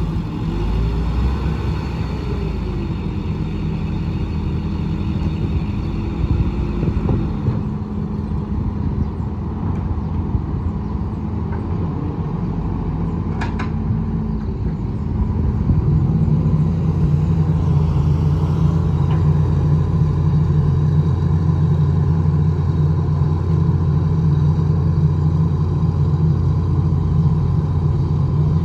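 Hitachi EX200 excavator's diesel engine running steadily with hydraulic whine, with one sharp clank about halfway; from just past halfway the engine works harder and gets louder, under load as the machine digs and swings wet soil.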